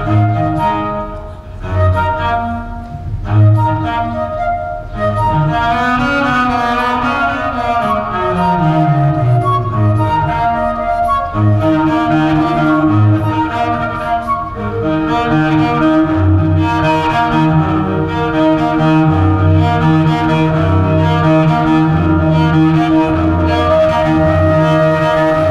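Flute and viola playing together: the flute carries a melody over bowed viola, whose low notes, reaching below the viola's normal range on a fitted cello string, pulse in a steady rhythm. About a third of the way in, a low line slides downward in pitch.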